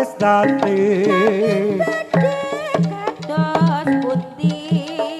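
Live Javanese jaranan ensemble music: drums in a quick, repeating rhythm under a wavering, bending melody line.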